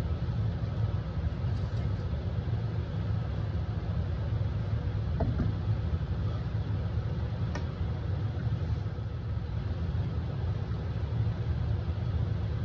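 Steady low hum of background machinery, with a light knock about five seconds in as a metal pot is set down on the cutting board.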